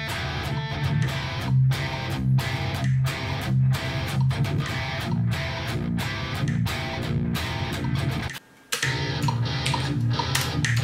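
Electric guitar playing a metal riff in choppy, evenly spaced chunks with short stops between them. It cuts out completely for about half a second around eight seconds in, then carries on.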